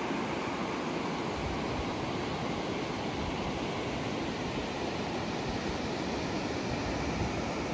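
Steady rushing of a fast-flowing mountain river over rocks, an even hiss-like roar with no change.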